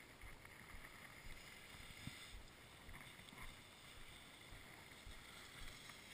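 Near silence: a faint, steady wind rumble on the microphone, with a few light knocks.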